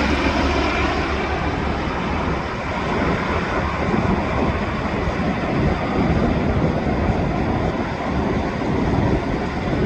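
Steady noisy rumble of a UH-60 Black Hawk helicopter's rotor and turbine noise, its higher sound dimming in the first second as it moves off.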